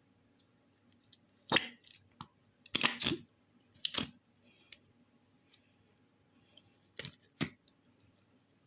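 Slime being squeezed and worked by hand, giving about half a dozen sharp clicking pops, some in quick pairs.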